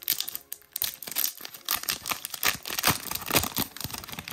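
Foil trading-card booster pack crinkling and tearing as it is ripped open and the cards are pulled out, in a dense run of irregular crackles.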